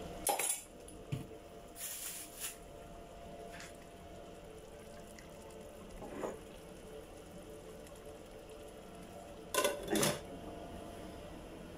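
Metal cooking pot and lid being handled: a few light clinks and knocks, then two louder clanks close together near the end as the lid is set on the pot. A steady low hum runs underneath.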